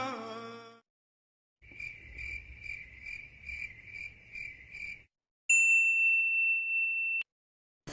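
Cricket chirping sound effect: a high chirp pulsing about two and a half times a second for about three seconds. It is followed by a steady high-pitched beep lasting under two seconds that cuts off suddenly.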